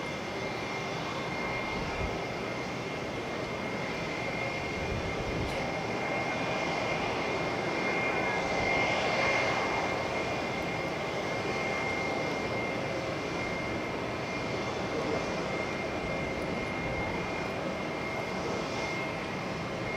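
Boeing 777-300ER's GE90 turbofan engines running at taxi power: a steady jet whine with a thin, high, level tone over broad engine noise, swelling slightly about halfway through.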